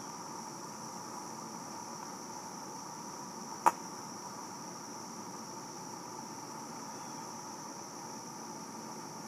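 Steady outdoor insect chorus with a high, even hiss, broken once by a single sharp pop about three and a half seconds in.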